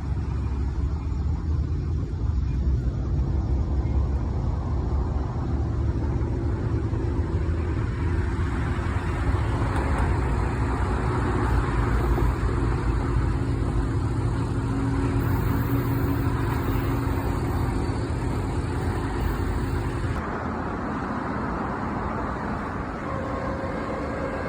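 Diesel locomotive engine running steadily: a low rumble with a few held engine tones. It breaks off abruptly about 20 seconds in, and quieter noise follows.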